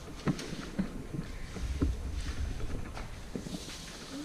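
Footsteps coming down wooden stairs and across a hard floor, a scattering of irregular knocks, over a low rumble from the moving camera.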